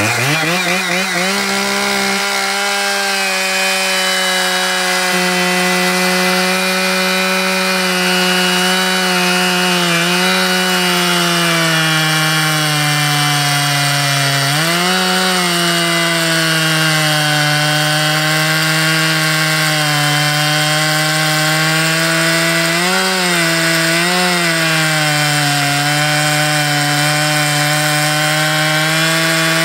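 Stihl 880 chainsaw with a 50-inch bar, its big two-stroke engine revving up to full throttle and held there as the chain cuts through a large log. The pitch sags briefly under load a few times, most deeply about halfway through, then picks back up.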